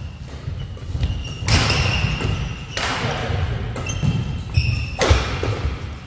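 Badminton doubles rally: rackets strike the shuttlecock three times, about a second and a half apart, with shoes squeaking and feet thudding on the court floor between the shots.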